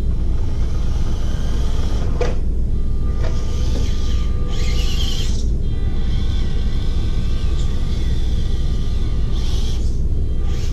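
Small electric RC crawler's motor and gears whining, starting and stopping a few times as it drives down the incline, over a steady low rumble.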